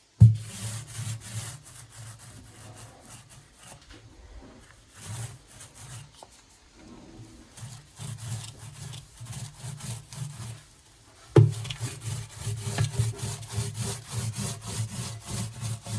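Paint roller rolling back and forth along the edge of an old cabinet, a rubbing sound in repeated strokes. It is louder at the start and again from about eleven seconds in, and quieter in between.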